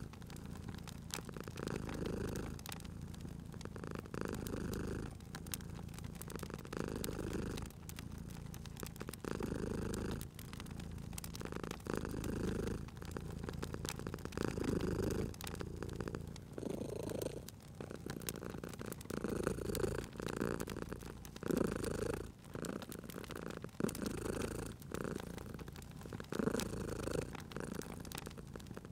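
Domestic cat purring, the rumble swelling and fading with each breath every second or two, over the small pops and crackles of a wood fire.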